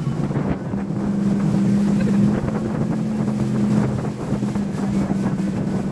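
Tow speedboat's engine running steadily at speed, a continuous low drone, with wind buffeting the microphone and the wake's water rushing.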